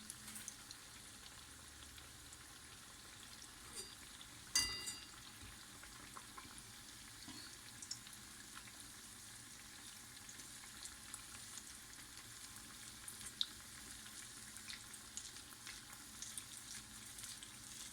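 Cornflour vada deep-frying in hot oil: a steady, faint sizzle with scattered small crackles and pops. About four and a half seconds in there is one sharp knock with a short ring.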